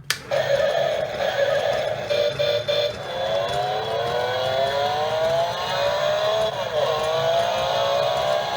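Car-themed alarm clock playing its recorded V8 engine alarm sound, starting with a click. The engine blips a few times, then revs up with a steadily rising pitch for several seconds, drops back about seven seconds in and runs on steadily.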